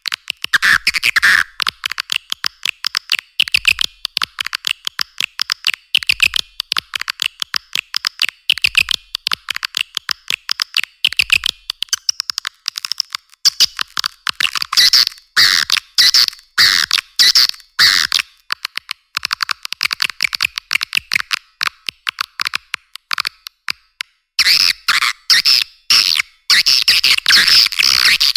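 Edible-nest swiftlet call recording: a dense, rapid chittering of many clicking, twittering chirps, the lure call that is played in swiftlet houses to draw the birds in to roost and nest. All the low pitches are cut away, and the calling breaks off briefly about four seconds before the end.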